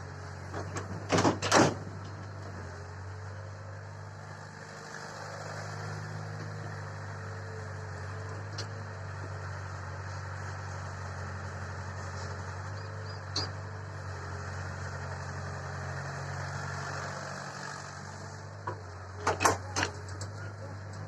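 Heavy diesel machinery running steadily, with a cluster of loud knocks or bangs about a second in and another near the end.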